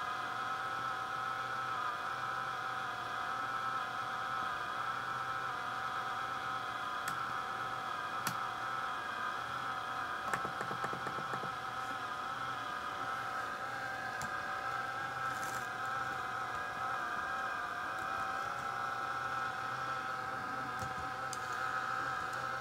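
Replacement cooling fan of an NEC VersaPro VY12F laptop running with an abnormal noise: a steady whine of several slightly wavering tones over a low hum, which it makes from its first power-on. A few light clicks come around the middle.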